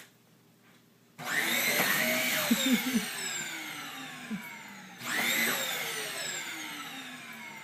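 Vacuum cleaner motor switched on about a second in: its whine climbs quickly, then slowly falls in pitch as it winds down. It is switched on again about five seconds in and rises and falls the same way.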